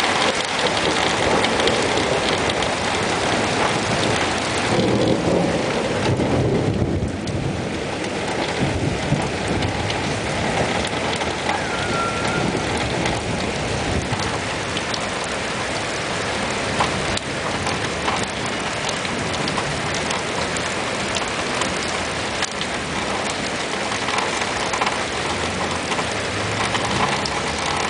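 Heavy rain falling steadily, the drops pattering on surfaces, with a low rumble of thunder about five seconds in.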